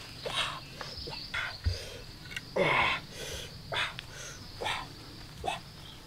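A steady high insect drone, with short animal calls that rise and fall in pitch about once a second; the loudest call, near the middle, slides down in pitch.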